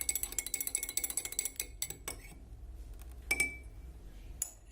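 Metal spoon stirring honey into a glass of herbal tea, clinking rapidly against the glass. The stirring stops about two seconds in, followed by two single ringing taps.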